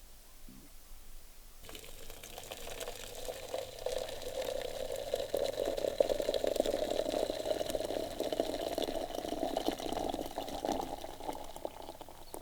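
Liquid running and gurgling with many small splashes. It starts suddenly about two seconds in and stops near the end.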